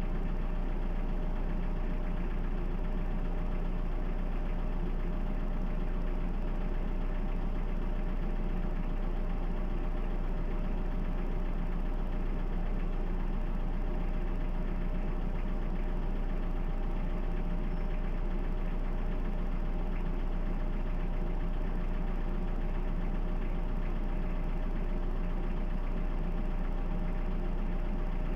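Toyota 2C four-cylinder diesel engine idling steadily, unchanged throughout.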